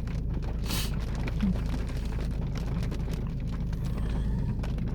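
Rain ticking on a car's roof and windshield, heard inside the car over a steady low rumble, with a short hiss about a second in.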